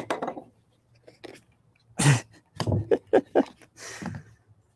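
A long cardboard shipping tube being handled and set down on a wooden table: a string of irregular knocks, scrapes and rustles, the loudest about two seconds in.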